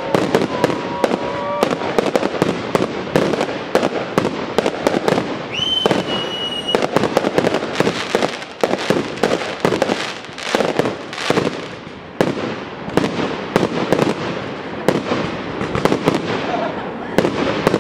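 Fireworks display: a dense, irregular barrage of bangs and crackles from aerial shells and stars bursting overhead, with no let-up. About six seconds in a short high whistle sounds over the bangs.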